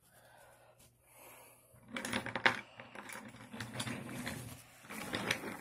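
Wooden toy trains being handled and pushed on wooden track: irregular clicks, knocks and rattles that start about two seconds in, after a quiet start.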